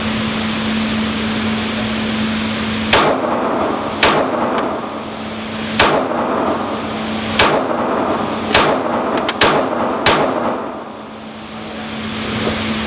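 FN 509 9mm semi-automatic pistol firing seven shots at an irregular pace, one to two seconds apart, over a steady low hum.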